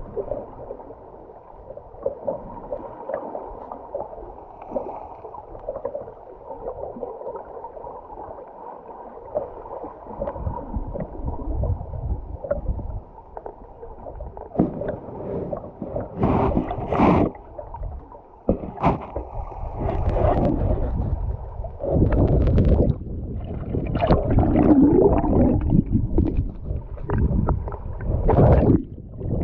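River water heard underwater: a muffled, low rushing with gurgling, which grows into louder, irregular gurgling surges in the second half.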